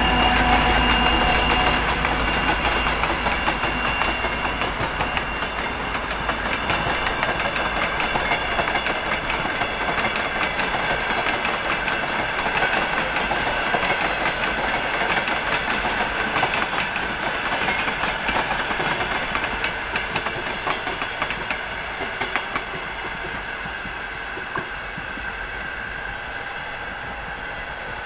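A freight maintenance train of ballast hopper wagons and track-machine cars rolling past, its wheels clattering steadily over the rail joints. In the first few seconds the engine note of the M62 diesel locomotive fades as the locomotive moves away. Near the end the clatter grows fainter as the last cars recede.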